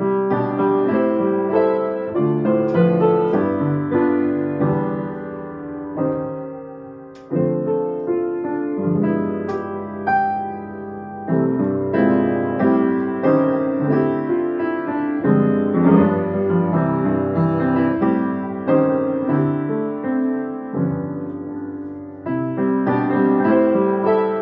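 Solo piano playing a slow piece of chords and melody, notes struck and left to ring, with brief pauses between phrases about seven and twenty-two seconds in.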